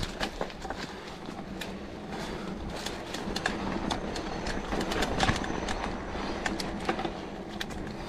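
Mountain bike rolling fast down a dirt singletrack: steady tyre and wind rumble with the rattle of the bike over bumps and many sharp clicks and knocks.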